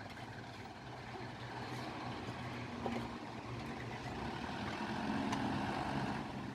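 Diesel engine of a heavy construction vehicle, a dump truck or excavator, running steadily and slowly growing louder, as if working harder or coming closer.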